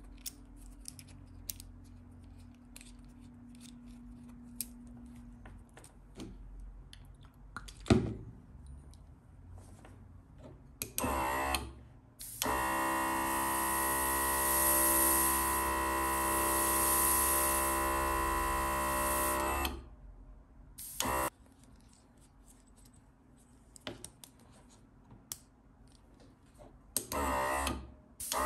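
Ribo TM80S cordless rechargeable airbrush compressor running and feeding air to an airbrush. It gives a short burst, then a steady run of about seven seconds with a hiss over its motor pitch, then two more short bursts. Before that come small clicks from the airbrush being handled and fitted to the hose, with one sharp click.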